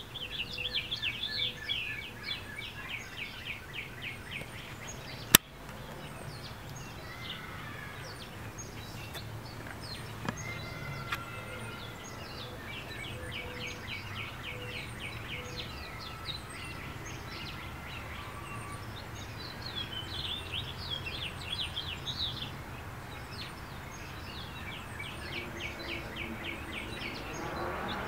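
Songbirds singing rapid chirping trills in runs of a few seconds each, over a low steady background hum. A single sharp click comes about five seconds in.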